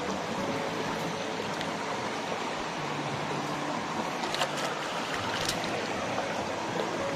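Shallow stream rushing steadily over a rocky bed, with a couple of short clicks a little past the middle.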